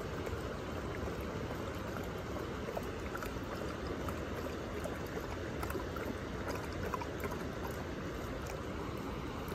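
Bluetick coonhound lapping water from a creek, with small wet splashes over the steady rush of the water.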